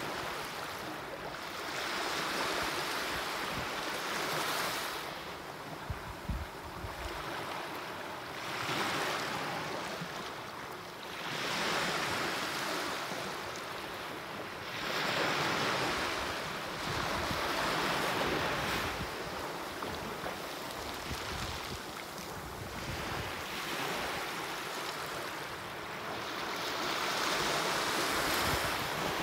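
Small waves breaking and washing up onto a sandy beach. The foamy rush swells and fades again every few seconds.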